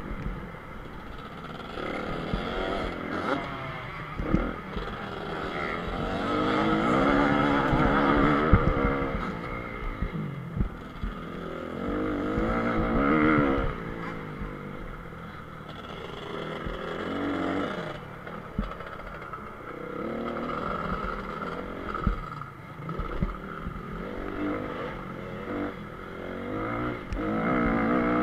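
Single-cylinder four-stroke engine of a 2014 Honda CRF250R motocross bike ridden hard, revving up and down repeatedly as the rider opens and shuts the throttle and shifts, with scattered knocks from the rough track. It is loudest about a quarter of the way in and again near the middle.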